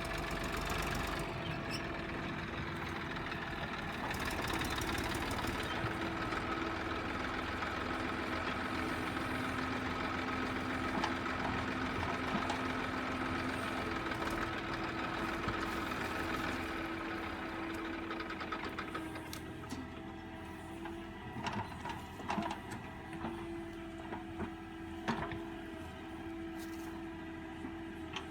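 JCB backhoe loader's diesel engine running at working revs, its tone shifting as the machine digs and loads sand. About two-thirds of the way through it settles quieter, and scattered sharp knocks and clanks follow.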